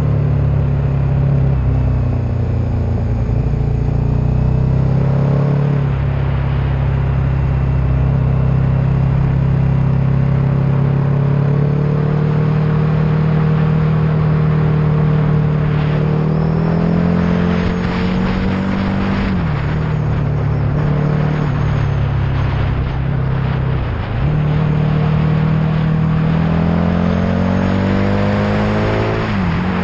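Vehicle engine running under load with road noise, its pitch climbing steadily as it accelerates and dropping sharply at three gear changes in the second half.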